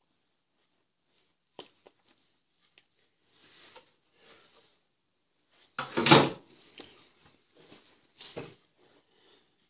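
Rustling of a leather jacket and soft knocks and thumps as hands move against it while signing, with a louder thump-and-rustle about six seconds in and a smaller one near the end.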